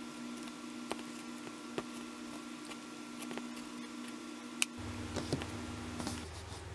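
Light clicks and taps from hands handling a Canon PowerShot SX730 HS compact camera, its tilting screen swung up, about five clicks with the sharpest about two-thirds of the way in. A steady electrical hum runs underneath and stops near the end.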